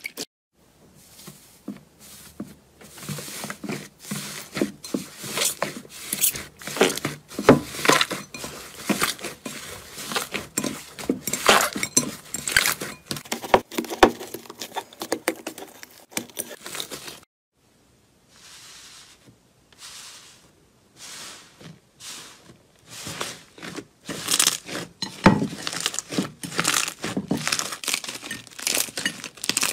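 Hands squishing and squeezing slime, with dense irregular crackles and small pops as air is pressed out of it. There is a short pause just over halfway through.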